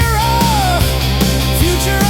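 Rock music: heavy guitars over a steady bass and drum beat, with a bending, gliding lead line.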